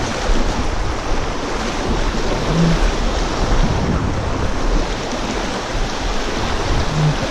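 Fast, shallow river water rushing steadily, with wind rumbling on the microphone.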